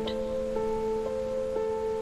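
Soft, slow background music: sustained held notes with a new note coming in about every second, in a tender mood.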